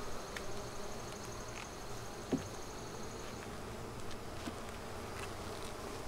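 Honeybees of a busy colony buzzing steadily over an open hive as a frame is held up; the bees are a little mad. A short knock about two seconds in.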